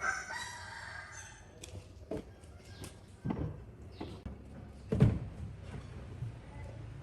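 A rooster crowing once, about a second and a half long. A few sharp knocks follow, the loudest about five seconds in.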